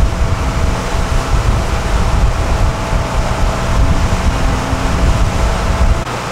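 Boat motor running under heavy wind buffeting on the microphone: a dense gusty rumble with a faint steady tone above it. The rumble drops off abruptly just before the end.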